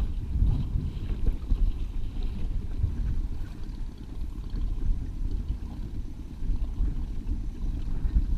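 Low, uneven rumble of a fishing boat on the water, with wind buffeting the microphone.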